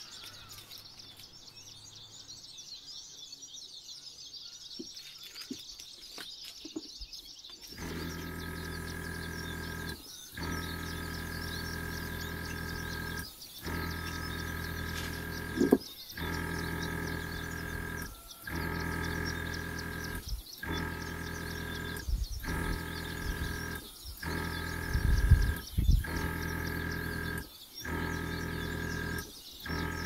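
Blow-dryer on its lowest, cool setting running with a steady motor hum, switched on about eight seconds in and broken by brief gaps every two to three seconds. Faint high chirping runs underneath, with a few light knocks before the dryer starts.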